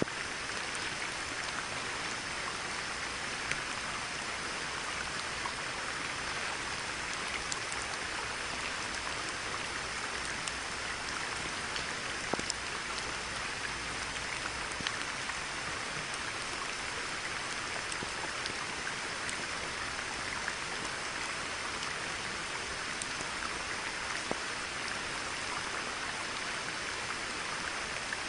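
Steady rain falling on a pond, an even hiss of patter with scattered louder single drops ticking through it.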